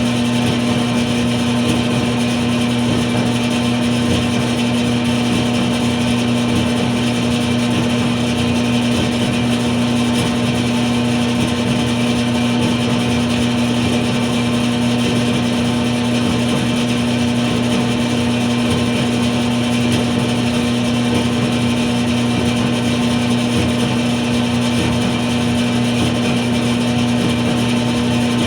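Clothes dryer running with a steady hum: a constant low tone over an even whooshing noise that does not change.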